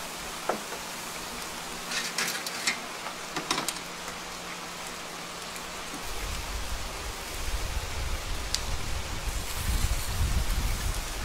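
Whole chickens spit-roasting over a charcoal grill: a steady sizzling hiss, with a cluster of sharp crackles and pops a few seconds in. From about halfway a low rumble joins and grows louder.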